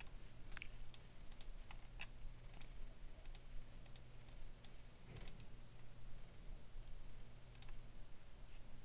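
Faint, irregular computer mouse clicks, some in quick pairs, over a steady low electrical hum.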